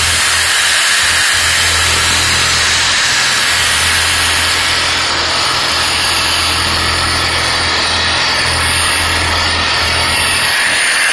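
Reciprocating saw running, its long blade fitted with a zip-tied wire brush that scrubs against a block of expanded polystyrene foam, shredding it into beads. The motor's low hum eases briefly about a second in and again near the end.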